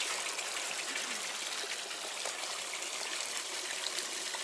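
Water trickling and running steadily.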